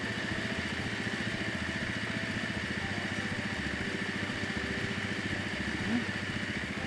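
Arctic Cat ATV engine running steadily while its winch reels in a chain to pull a dead stump over, with a steady high whine over the engine. A brief rising squeak near the end.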